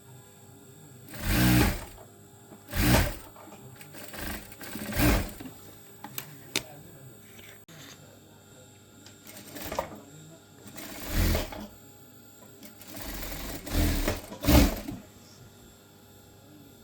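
Sewing machine stitching in several short runs of about half a second to a second, stopping and starting again with pauses between.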